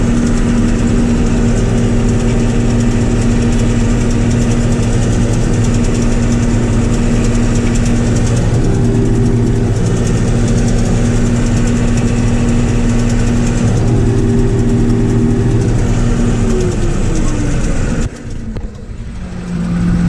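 John Deere combine harvester running, heard from inside its cab: a loud, steady engine and machinery drone with several steady hums. A higher whine comes and goes twice midway, and the sound drops away sharply near the end.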